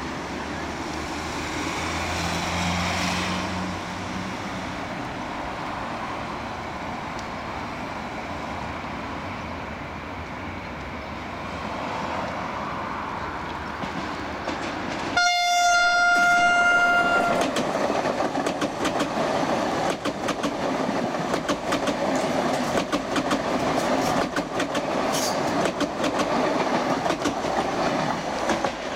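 Allegro high-speed electric train (Sm6, an Alstom Pendolino) approaching with a growing rumble, then one steady horn blast of about two seconds, about halfway through. It then passes close by, its wheels clicking rapidly over the rail joints.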